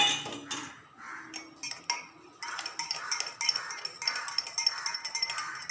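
A spoon clinking against a vessel: one sharp clink at the start and a few separate knocks, then quick repeated clinks with a ringing tone from about two and a half seconds in, as of stirring the drink.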